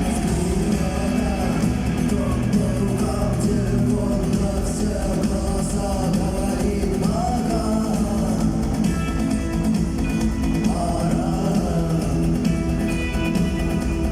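Live rock band playing: electric guitars, bass and drums, with a voice singing over them.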